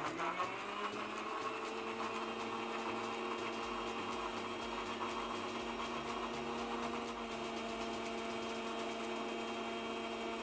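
Electric mixer grinder starting up, its motor rising in pitch over the first second, then running steadily as it purées whole strawberries with a little milk and sugar in the jar.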